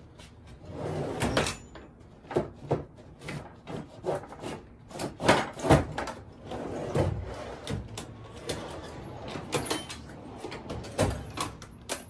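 Hand tools being rummaged and handled: irregular metallic clicks, clunks and rattles, with the loudest knocks about five and a half seconds in.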